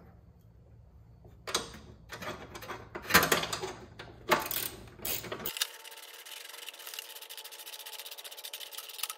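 A few sharp metal clinks and knocks, then a ratchet wrench clicking rapidly and evenly for the last few seconds, running an M12 bolt with a 15 mm head into the tow-hitch bracket before it is torqued.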